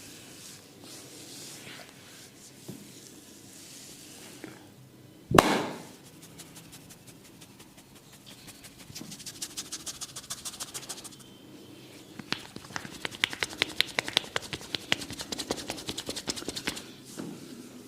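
Barber's hands working a client's head and hair: soft rubbing and scratching in the hair, a single loud thump about five seconds in, then fast runs of crisp clicks, about ten a second, from midway almost to the end. This is the crackling of a hair-cracking head massage.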